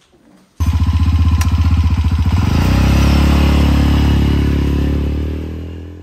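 Three-wheeled motorcycle's engine running as it rides away. It starts abruptly about half a second in, runs loud and steady, and fades near the end.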